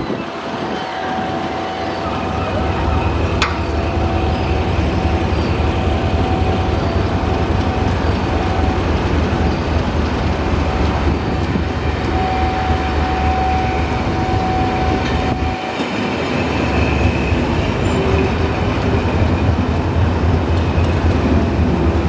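Class 50 and Class 37 English Electric diesel locomotives working under power to move a long train away from a standstill. A loud, steady, deep engine drone with a few humming tones is heard over the rumble of the train, with a short dip in level about three-quarters of the way through.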